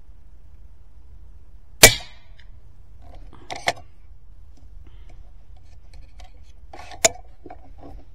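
Skout Epoch PCP air rifle firing a 40-grain slug: one sharp, loud crack about two seconds in. A few softer clicks follow, then a second, quieter sharp crack about seven seconds in.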